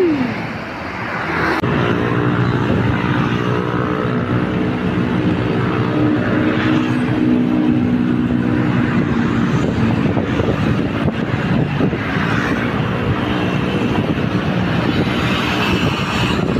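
Road traffic passing on a busy road. A vehicle engine hums steadily from about two seconds in until about eleven seconds in, over continuous road noise.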